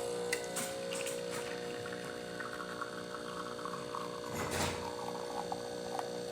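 Pasquini Livia 90 espresso machine's pump humming steadily while pulling a shot, with a brief rushing burst about four and a half seconds in.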